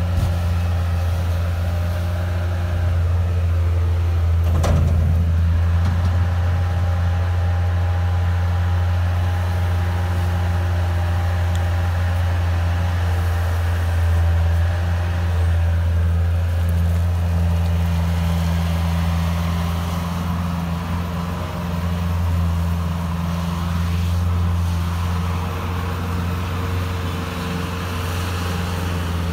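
Bobcat S130 skid-steer loader's diesel engine running steadily as it works snow, with a single knock about five seconds in.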